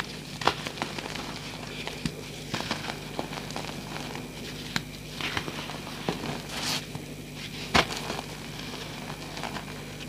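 Gel-reformed gym chalk blocks squeezed and crumbled by hand, giving irregular soft crunches and crackles as the powdery chunks break apart; the loudest crunch comes about eight seconds in.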